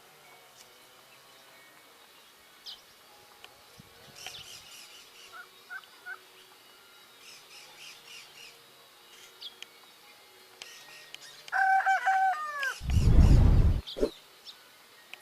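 Small seedeaters (golinhas and coleiros) giving short, high, scattered chirps. About twelve seconds in comes a loud run of lower calls with falling ends, then a loud rough burst lasting about a second.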